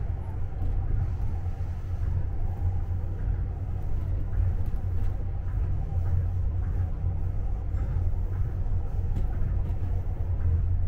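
Tokyo Monorail train heard from inside the front car as it runs along its elevated beam on rubber tyres: a steady low rumble with a faint hum above it.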